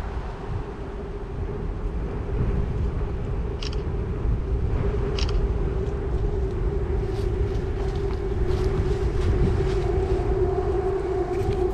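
Wind rumbling on the microphone while cycling outdoors, under a steady mechanical hum that grows louder and fuller near the end. Two sharp clicks come about a second and a half apart, near the middle.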